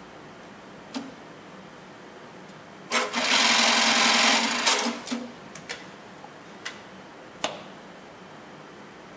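Siruba BT290 industrial sewing machine running a short sewing cycle of about two seconds, starting about three seconds in, with a single sharp click before the run and several after it.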